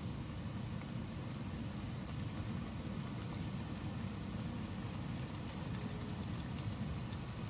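Kibbeh (bulgur-and-meat shells) deep-frying in hot oil in a pan: steady sizzling with many fine crackles.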